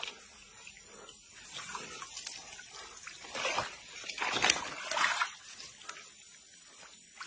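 Water splashing and sloshing in several short bursts, the loudest about four and a half seconds in, as a large hooked trairão is played through shallow, weedy water.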